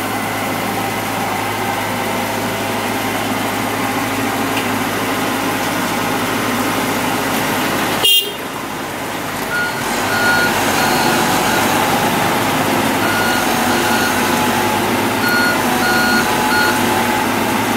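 Heavy diesel machinery running steadily. After an abrupt break about eight seconds in, a backup alarm beeps in short repeated runs over the engine noise.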